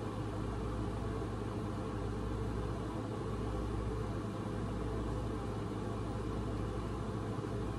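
A steady low hum with an even hiss over it: continuous background room noise from a running machine.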